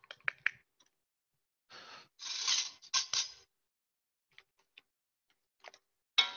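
Brief scraping and rustling noises with a few sharp clicks, as butter is handled and added to a saucepan of strawberry and rhubarb puree.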